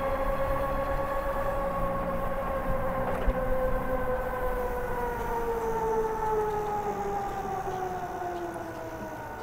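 Electric bike motor whining while riding, holding a steady pitch and then slowly falling in pitch over the last few seconds as the bike slows, with wind rumble underneath.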